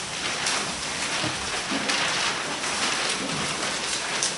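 A steady hiss of noise, strongest in the upper range, with faint low murmurs under it.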